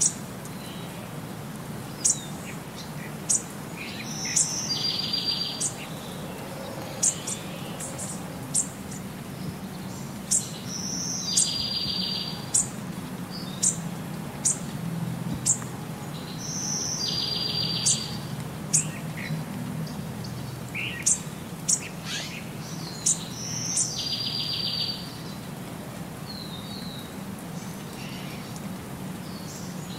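Birdsong: short, sharp, high chirps scattered throughout, with a buzzy trill about a second long repeating every six to seven seconds over a low steady background hiss. It reads as one looped ambience track rather than the animals' own sound.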